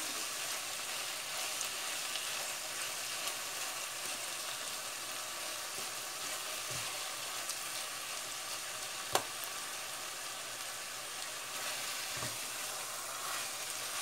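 Ground meat with chopped green onion sizzling steadily as it sautés in a pot, stirred with a silicone spatula. A single sharp click about nine seconds in, with a couple of soft knocks around it.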